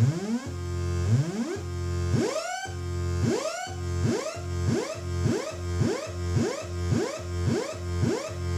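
Future Sound Systems Brunswick DIY analogue synthesizer sounding a buzzy low tone, crossed by repeated rising pitch swoops that quicken from about one a second to about two a second. The LFO cycle is set shorter than the envelope attack.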